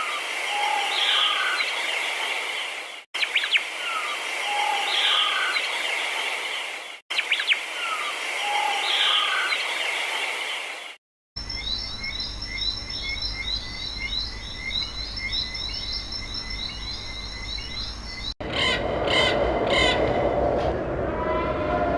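Wild birds calling and chirping, heard in several short clips cut one after another. A dense run of quick high chirps fills the middle clip.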